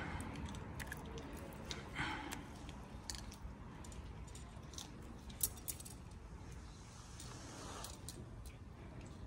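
A cat chewing on a grilled chicken foot: faint, irregular crunching clicks, with one sharper crack about five and a half seconds in.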